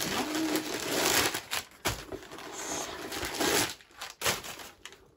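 White packing paper crinkling and rustling as it is pulled out of a backpack, in several loud surges that die down near the end.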